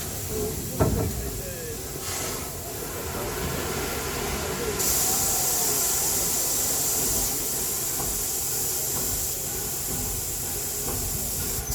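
LNER Peppercorn A1 steam locomotive Tornado venting steam: a loud hiss starts suddenly about five seconds in and cuts off near the end. A single sharp knock about a second in.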